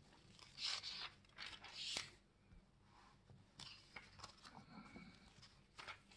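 Faint rustling of thin Bible pages being turned by hand, a papery swish with each flip. The two louder swishes come in the first two seconds, then lighter rustles and small ticks follow.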